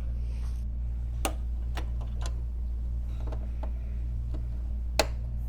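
Several sharp, scattered plastic clicks and taps from releasing zip ties and pulling a cable free, the loudest near the end, over a steady low hum.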